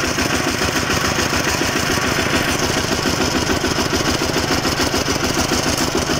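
Engine of a kor yun, a Cambodian two-wheel walking tractor with a single-cylinder diesel, running steadily with a fast, even chug.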